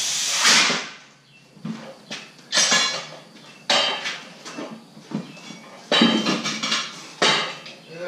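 A steady hiss of air stops sharply under a second in, then metal tools and wheel hardware clank and clatter in about half a dozen separate knocks.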